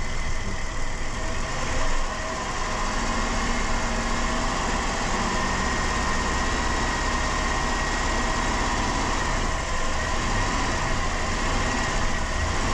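2007 Dodge Caravan engine running steadily while Seafoam intake cleaner is drawn in through a vacuum line, with a faint steady whistle over the engine noise. The engine is tired and worn.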